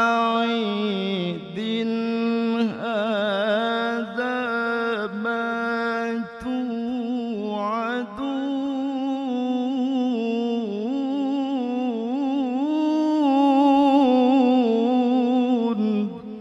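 A male qari reciting the Quran solo in a melodic, sung style into a microphone. He draws out the last word of the verse, "ba'id", in one long ornamented melisma with quick wavering turns. It grows loudest near the end and then breaks off.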